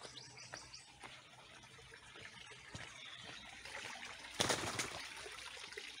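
Small birds chirping over a faint trickle of water, with a brief loud rush of noise about four and a half seconds in.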